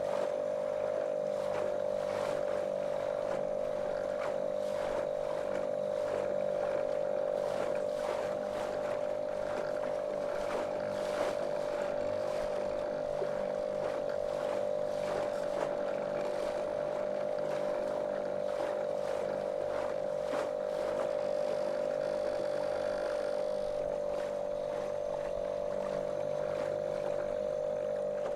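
Small motorboat's outboard motor running at a steady cruising speed, a monotonous drone, with water splashing and slapping against the hull.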